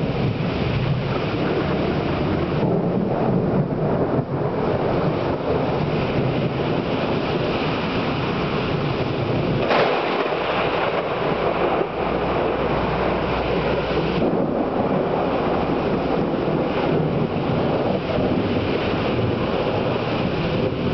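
Heavy thunderstorm rain pouring down steadily, a dense rushing hiss with a brief louder burst about halfway through.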